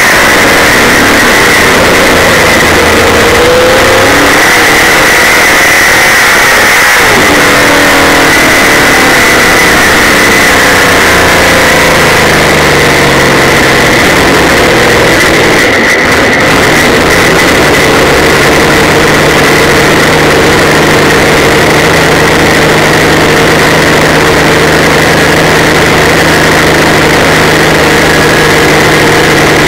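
Super late model dirt race car's V8 engine, heard very loud from a camera mounted on the car. The revs fall away over the first several seconds, then the engine runs steadily at lower revs.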